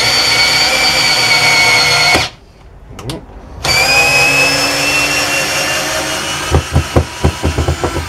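Workzone 12 V cordless drill driving a long wood screw into timber without a pilot hole. It runs for about two seconds, pauses briefly, then runs again with its motor whine sagging slightly under load. A quick run of sharp clicks comes near the end.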